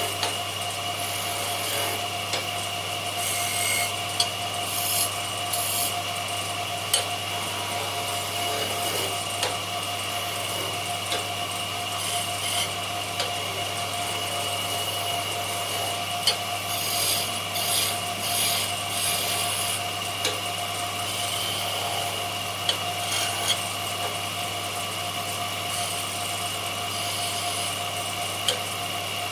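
Power tool motor running steadily while wood is rubbed and scraped against it, with scattered sharp clicks and a few longer stretches of scraping.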